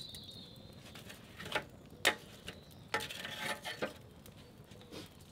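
Metal tongs knocking and scraping against a steel Kadai fire bowl as burning logs and embers are shifted about, with a handful of separate sharp knocks, the loudest about two seconds in.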